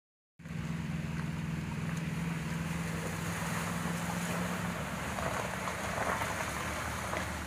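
Small hatchback car driving slowly through a flooded pothole: a steady low engine hum that fades about five seconds in, with tyres swishing and splashing through muddy water, and wind on the microphone.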